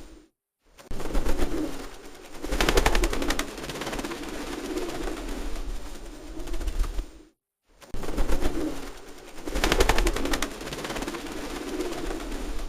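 Feral pigeons cooing, a low repeated cooing. Twice it is joined by a burst of rapid clattering, and the sound drops out briefly near the start and about seven seconds in.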